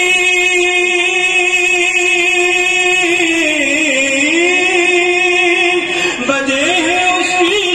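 A man's voice singing an unaccompanied Urdu devotional nazm in praise of Allah, drawing out long held notes without clear words. The pitch dips and rises again about four seconds in, breaks briefly near six seconds, and then moves in wavering turns.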